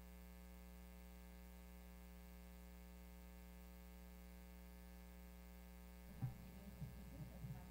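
Near silence: a steady low electrical hum from a microphone channel with no one speaking into it, with a faint voice coming in about six seconds in.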